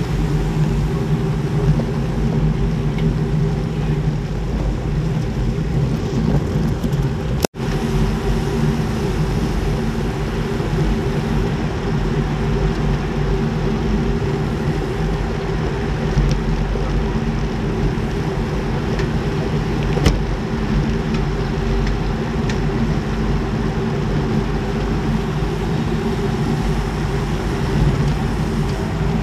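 Steady wind rush on a bike-mounted action camera's microphone, riding in a road-race bunch at about 35 to 45 km/h. The sound cuts out for an instant about seven and a half seconds in.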